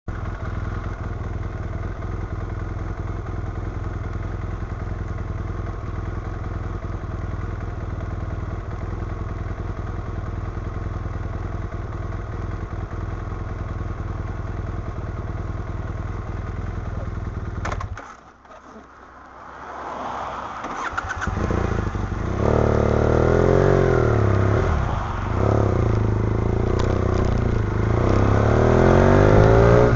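BMW F800ST's parallel-twin engine idling steadily. About eighteen seconds in it drops away briefly, then it revs up and pulls away, the engine note rising and falling as the motorcycle accelerates.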